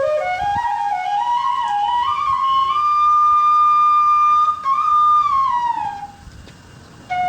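Background music: a flute melody climbing in steps to a long held high note, then gliding down and pausing briefly near the end before starting again.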